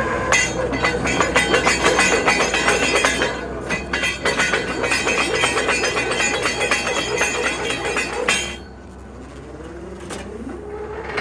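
Borewell drilling rig running, with rapid metallic clattering and ringing over a steady engine hum. The clatter stops about eight and a half seconds in, leaving the engine, whose pitch then rises.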